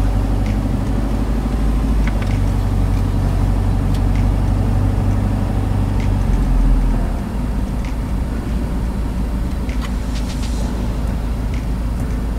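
Car driving on the highway: a steady low road-and-engine rumble heard from inside the cabin. The deepest rumble eases off about seven seconds in.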